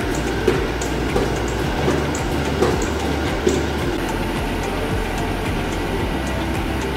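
Snack production line machinery running: a steady mechanical hum with a clack about every three-quarters of a second. About four seconds in the clacks stop and a steadier hum with faint, quick ticks remains.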